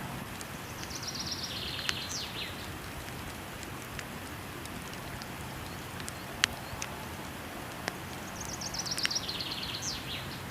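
Steady rush of falling water with sharp crackling pops from a wood fire, the loudest about six and a half seconds in. A songbird twice sings a fast trill of repeated notes that drops in pitch and ends in a quick downward slur, once near the start and again near the end.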